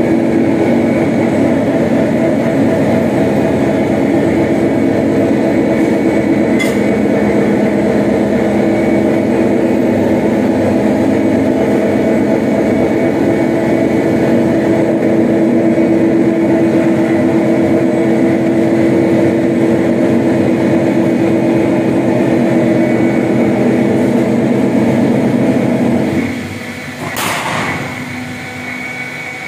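Roll forming machine for punched steel channel running with a steady, loud hum. Near the end it stops, and a single sharp clank follows as the cut-off die shears the channel to length.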